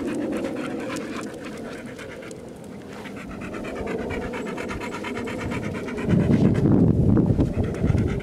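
Pit bull panting rapidly and steadily, close by. A louder low rumble joins in about six seconds in and lasts about two seconds.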